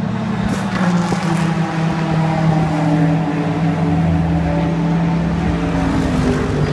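BMW race car's engine running steadily at low revs as the car pulls into its pit box and stops.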